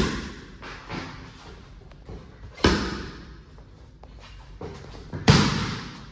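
Boxing gloves smacking into focus mitts as single punches are thrown from below: three loud smacks about two and a half seconds apart, with fainter thuds between, each echoing in the large gym hall.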